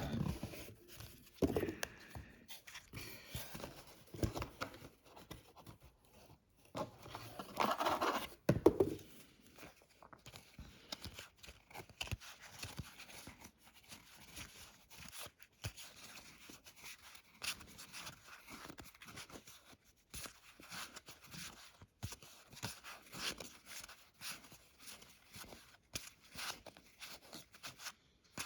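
Hands opening and handling a cardboard box of trading card product: irregular scraping, rustling and crinkling of cardboard and packaging, with a louder stretch about eight seconds in.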